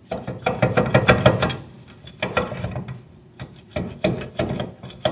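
A stuck rear disc-brake caliper on a 2017 Honda Civic being wiggled and pried by hand against the rotor: bursts of metal clattering, knocking and scraping. The bursts come in clusters, the longest in the first second and a half.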